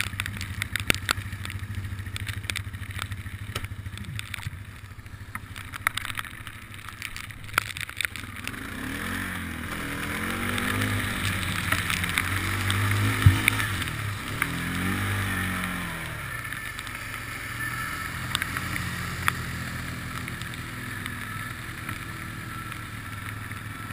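ATV engine running as the quad drives through shallow floodwater and mud, with many sharp ticks in the first part. Midway the engine revs rise and fall several times as the quad pushes through the water, with splashing.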